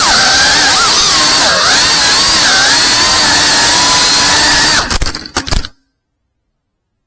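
Cinewhoop FPV drone's brushless motors and propellers whining, the pitch rising and falling with the throttle. About five seconds in there is a quick cluster of knocks, then the motor sound cuts off suddenly as the drone comes to rest.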